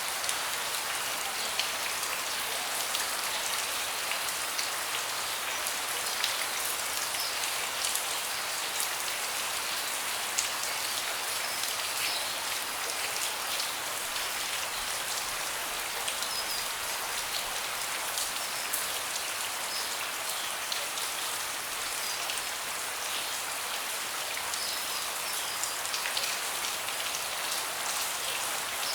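Steady rain falling on a deck: an even hiss with many individual drops ticking close by.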